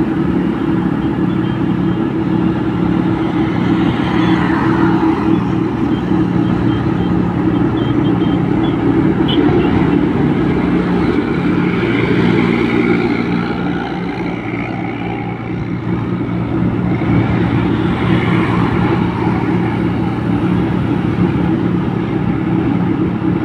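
A road vehicle's engine running steadily at cruising speed under road and wind noise, with other traffic swelling past twice and the engine easing off for a moment past the middle.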